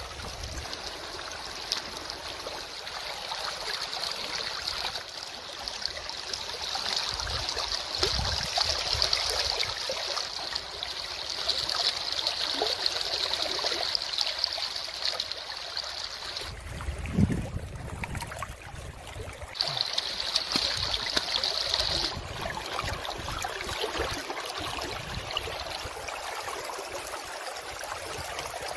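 River water trickling and lapping around a floating basket, a steady noisy wash with a high hiss over it that drops out for a few seconds past the middle and again near the end.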